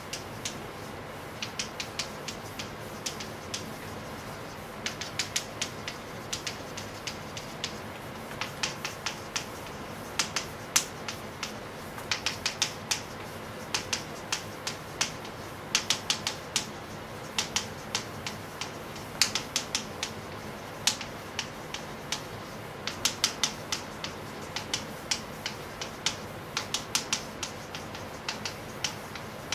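Chalk clicking and tapping against a blackboard as words are written, in short clusters of quick clicks with brief pauses between them, over a faint steady hum.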